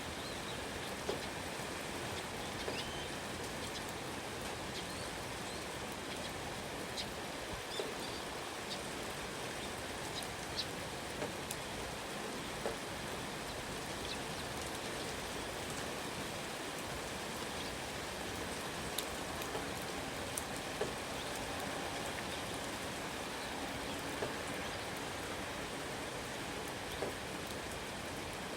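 Steady rain falling, with scattered single drops striking close by as sharp ticks above the even patter.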